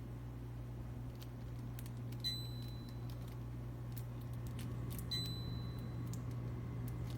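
let'me ultrasonic cool-mist humidifier running with a steady low hum while its control-panel buttons are pressed: two short high beeps about three seconds apart, with light clicks.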